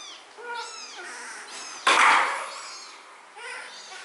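Very young kitten mewing: a string of short, high-pitched mews, the loudest about two seconds in.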